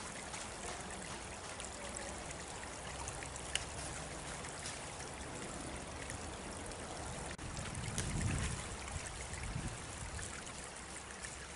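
A small stream running steadily, an even rush of water, with a brief low rumble about eight seconds in.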